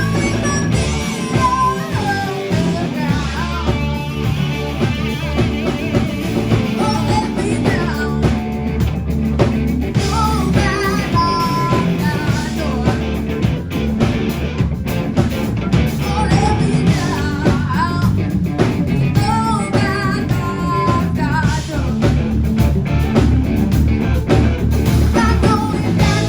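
Live blues-rock band playing loudly: an electric guitar lead of bent, wavering notes over bass and drums.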